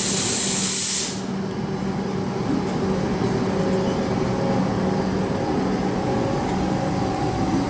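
Comeng electric suburban train pulling away from the platform: a loud hiss that cuts off suddenly about a second in, then the train's steady hum and rumble as it moves off.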